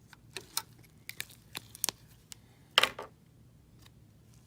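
Hands handling a label and small printer parts: a series of short clicks and rustles, the loudest about three seconds in.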